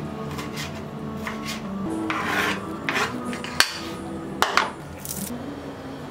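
Kitchen knife chopping a tomato on a plastic cutting board: a quick run of short cuts, then a longer scraping rub and a few sharp knocks.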